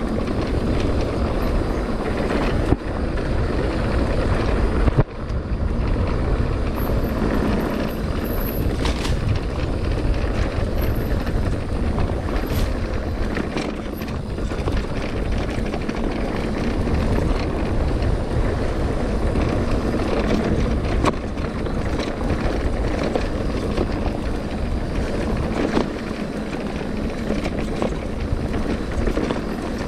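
Mountain bike rolling fast over a rough dirt trail, recorded by the rider's action camera: steady tyre roar on dirt and wind rushing over the microphone, with occasional knocks and rattles from the bike over bumps, the sharpest about five seconds in.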